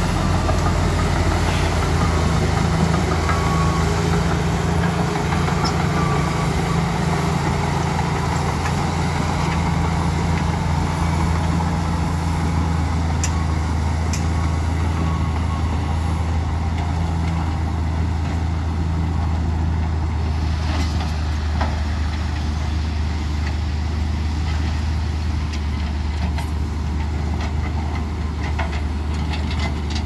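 LiuGong B160C crawler bulldozer's diesel engine running steadily while it works, a deep continuous hum. A second, higher engine tone drops away about two-thirds of the way through.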